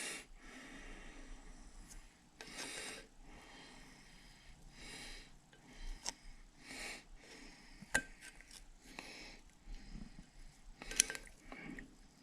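A person breathing close to the microphone, slow breaths about every two seconds, with a few faint clicks.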